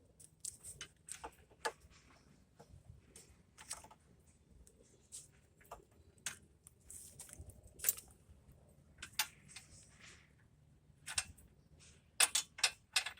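Irregular sharp metallic clicks and taps of a hand tool being worked against the top brake caliper bracket bolt, which it can't properly grip, with a quick cluster of clicks near the end.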